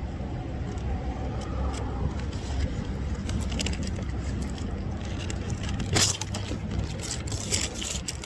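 Eating noises: a Sonic Coney dog being bitten and handled, with scattered crackling and rustling, the loudest about six seconds in and again near the end, over a steady low rumble.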